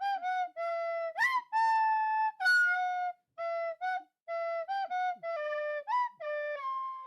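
A melody played on a flute-like woodwind instrument: a run of short separate notes, with a couple of quick upward slides between them.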